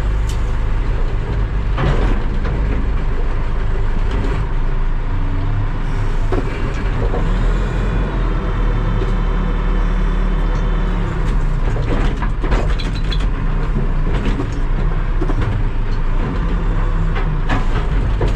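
Terex TLB-815 backhoe loader's diesel engine running steadily under load, with scattered knocks and clatters, and a high whine from about seven to eleven seconds in.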